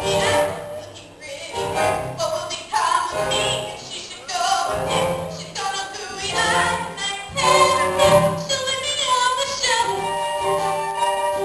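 Musical theatre song: voices singing over instrumental accompaniment.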